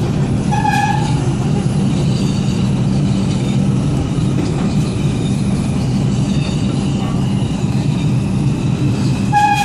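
R142 subway car running on the rails: a steady, loud rumble of wheels and car body, with a faint high whine above it. A short high tone of about half a second sounds near the start and again near the end.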